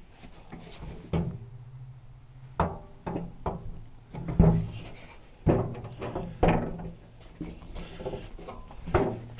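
Irregular metal clunks and knocks, about nine in all and the loudest about four and a half seconds in, from a steel utility table being moved and handled on a caster mobile base kit. A low steady hum runs underneath.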